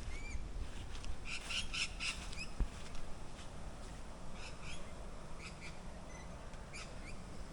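Birds chirping in short, quick calls, with a cluster of calls about a second and a half in and a few more midway.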